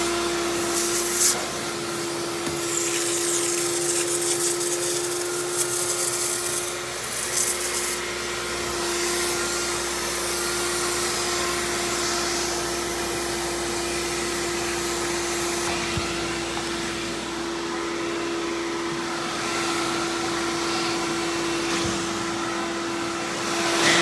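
Hoover Dial-A-Matic U6039 upright vacuum's clean-air motor running steadily, drawing air through the hose and crevice tool: a constant motor hum over a rush of air. The hiss brightens briefly about a second in and again around six to eight seconds in.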